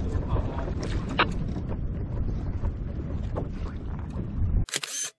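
Wind buffeting the microphone on a kayak out at sea, a steady low rumble with a few light creaks and clicks from the kayak. The sound cuts off suddenly near the end, followed by a brief hiss.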